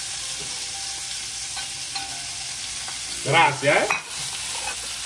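Sliced sausages sizzling and frying in a metal pan on a gas burner, scraped in off a plate and stirred with a spoon; a steady hiss.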